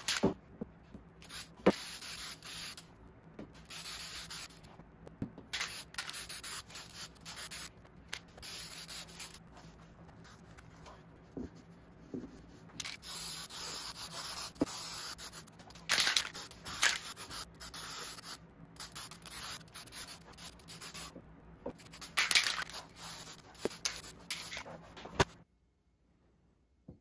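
Aerosol can of Minwax water-based Polycrylic clear finish sprayed in repeated bursts of hiss, stopping and starting many times, with a few sharp knocks between bursts. The spraying stops suddenly about 25 seconds in.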